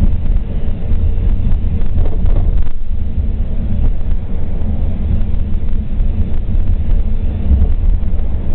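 Steady low rumble of a vehicle cruising on a highway: road and engine noise with wind buffeting the microphone.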